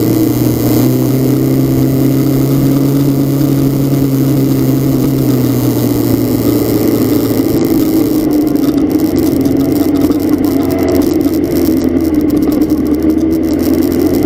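Car engine running steadily while driving, over a constant even noise; the engine's low note drops in pitch about halfway through.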